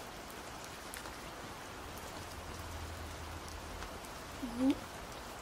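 Steady rain, an even hiss of falling drops. Near the end a short sound from a voice rises briefly above it.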